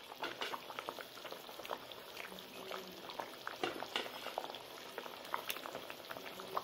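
Mustard gravy bubbling at a boil in a pan, with many small irregular pops.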